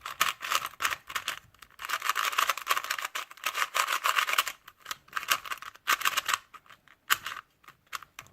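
A new Qiyi 2x2 speed cube being turned fast by hand, in bursts of rapid plastic clicking and scraping, with a few single clicks near the end. The turning is scratchy and tight: the new cube is stiff, and the speaker calls it too tight and sandy.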